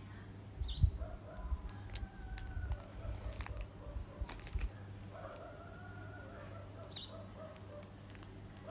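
Knocks and rubbing of a phone being handled, loudest about a second in, with birds calling in the background: a quick high falling whistle repeated every couple of seconds, and lower calls.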